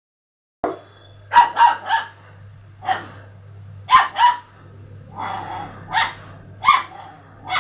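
Dog barking: about ten short barks in irregular groups of one to three, starting about half a second in, over a steady low hum.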